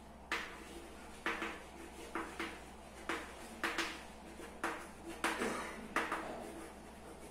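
Chalk writing on a blackboard: a run of about a dozen short strokes, each starting with a sharp tap and trailing off.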